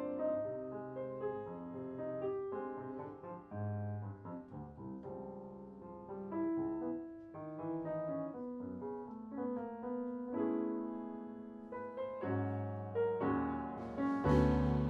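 Unaccompanied grand piano playing chords and a melody line as a jazz introduction; near the end cymbals and drums come in with it.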